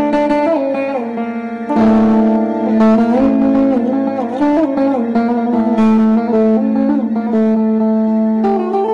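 Instrumental music led by a plucked string instrument, playing a winding melody over steady held drone notes.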